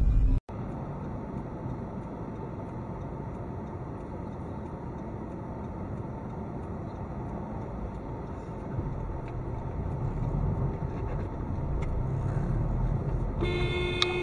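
Steady road and engine noise of a car driving, heard from inside the car. Near the end a car horn sounds one long blast of about a second and a half.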